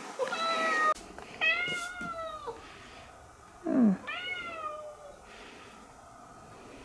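A cat meowing three times, each meow a drawn-out call that drops in pitch at its end, with a brief, louder call sliding steeply down in pitch about four seconds in.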